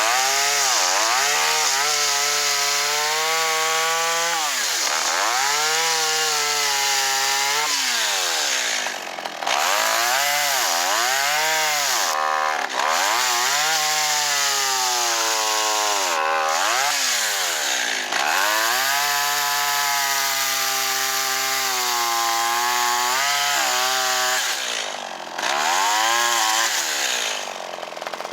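Kyoritsu CS-362 two-stroke chainsaw running and being revved repeatedly, the engine note climbing, holding and dropping away about half a dozen times.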